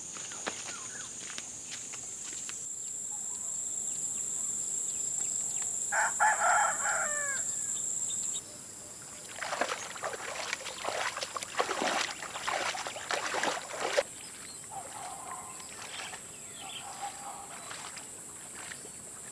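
A steady, high insect drone of crickets or cicadas, with a rooster crowing once about six seconds in. Later, for about four seconds, water splashes and sloshes irregularly as a man wades in a muddy pond.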